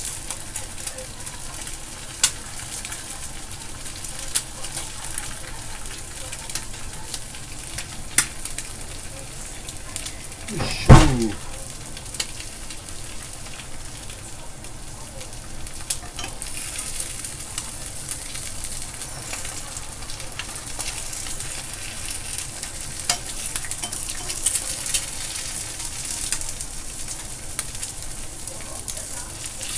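Two eggs frying sunny-side up in a nonstick frying pan, sizzling steadily with scattered crackling pops. One sharp knock about eleven seconds in.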